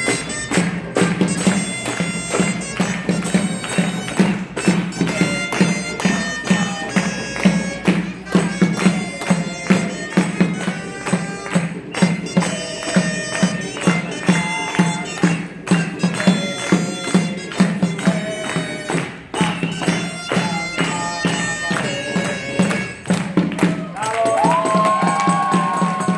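Traditional folk music played on a reedy, bagpipe-like wind instrument, with a melody over a steady, driving drum beat.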